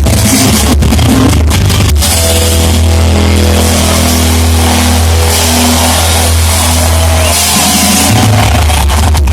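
Rock band playing live, loud and bass-heavy, recorded with heavy distortion. The first couple of seconds are choppy with brief dropouts, then long held notes ring out.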